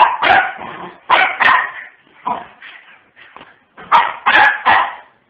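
Pomeranian puppy barking and yipping: a run of about ten short, high barks in small clusters of two or three, with brief pauses between them.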